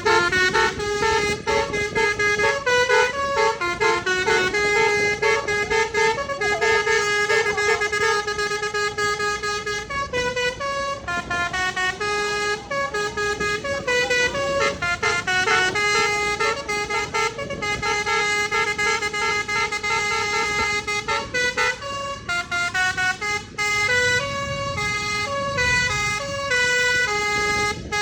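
Bus telolet horn, a set of musical air horns, playing a long melody of stepped notes with several horn tones sounding together, without a break.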